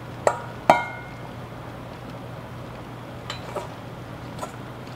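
A metal spoon knocking against a stainless steel mixing bowl while spooning dumpling dough: two sharp ringing clinks within the first second, the second the louder, then three lighter taps a few seconds later, over a low steady hum.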